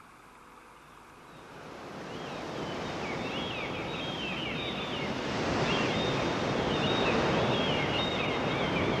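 Sea surf rushing, fading in from quiet and building to a loud, steady wash, with many short high-pitched cries over it.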